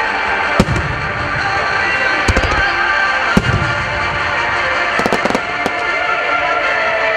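Firework shells bursting in a rapid-fire starmine display, sharp bangs at irregular intervals with a quick cluster about five seconds in, over loud music played along with the show.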